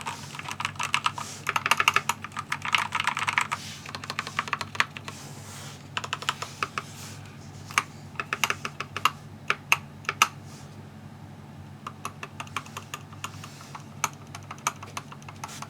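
Keychron K4 v2 mechanical keyboard being typed on, with lubed Gateron Yellow switches, foam and tape mods and lubed stabilizers: a fast run of keystrokes for the first few seconds, then slower, scattered key presses with a few louder single clacks.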